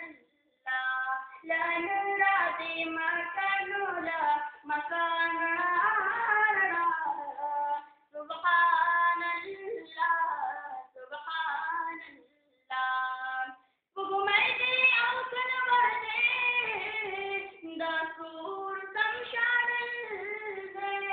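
A schoolboy's voice singing a naat unaccompanied, in long held, wavering phrases broken by short pauses for breath.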